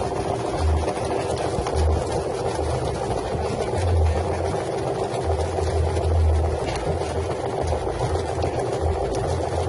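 Drum-type chicken feather plucking machine running: a steady motor hum with uneven low thumping.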